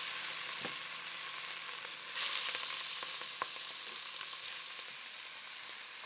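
Sage grouse pieces sizzling as they brown in hot bacon fat in an enamelled Dutch oven, with a few light clicks from a wooden spatula turning them. The sizzle grows louder about two seconds in.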